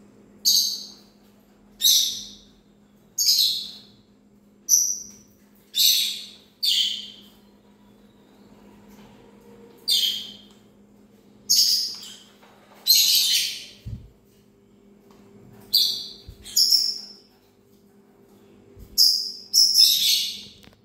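A parrot giving loud, short, high-pitched chirping calls, one every second or so in irregular runs with a couple of pauses, over a steady low hum.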